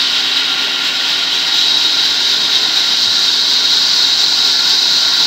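Vertical wood band saw running steadily with a loud, even high-pitched hiss as a plank is fed through the blade.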